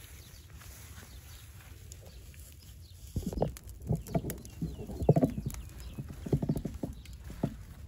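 Dry straw flaring up and burning, crackling and popping in uneven clusters of quick snaps from about three seconds in.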